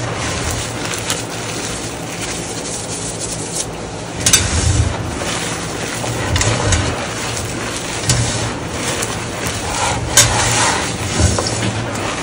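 Dry gym chalk being crushed and crumbled by hand into powder: a steady rubbing, scraping crunch, with sharper crunches about four seconds in and again near ten seconds.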